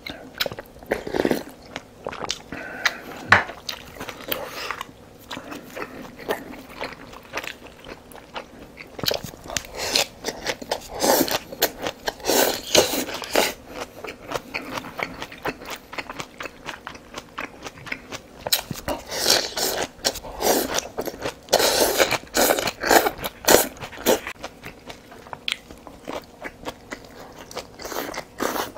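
A person chewing and biting food, with crunches. The bites come thickest in two stretches, about a third of the way in and again about three quarters through.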